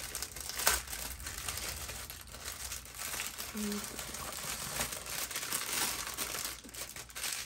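Small plastic bags of diamond painting drills crinkling and rustling as they are handled and laid out one after another.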